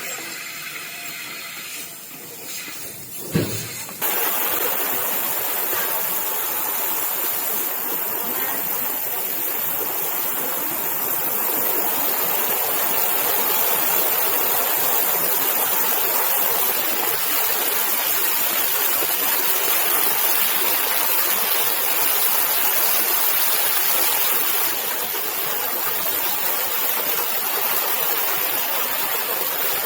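A couple of sharp clicks, then a steady rushing hiss that starts abruptly about four seconds in and holds unchanged.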